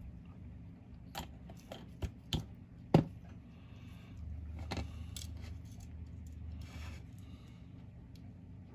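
Small plastic model parts and tools being handled and set down on a hobby bench: four sharp clicks and knocks in the first three seconds, the loudest about three seconds in, then a few seconds of soft rubbing and scraping.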